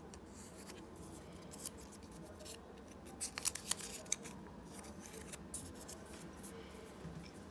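Colour paper handled by fingers, folded and pressed onto a paper sheet: faint rustling with scattered small crackles, a cluster of them a little before the middle.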